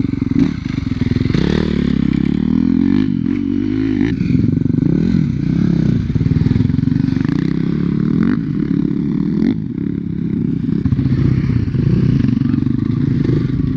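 Dirt bike engine close to the microphone, revving up and down again and again as it is ridden on a rough dirt trail, with a few sharp knocks and clatter mixed in.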